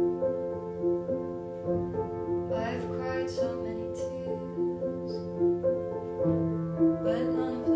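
Live solo piano accompaniment: a repeating pattern of notes over a held bass note, which moves to a lower bass note about six seconds in. A woman's singing voice comes in briefly twice, about two and a half seconds in and again near the end.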